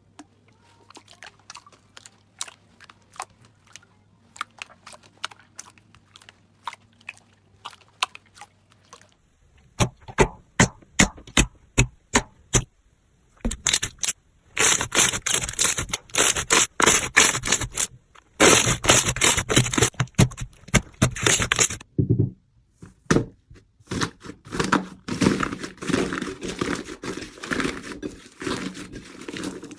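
Slime being squished and poked by hand: rapid sharp crackles and clicks, sparse and quiet at first, then much louder and denser about a third of the way in, with a few short pauses.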